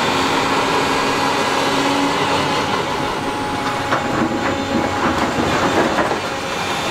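Hydraulic excavator with a demolition grapple running steadily while tearing down a brick wall. About four seconds in, several sharp cracks and clatters of breaking brick and falling debris come over the machine's drone.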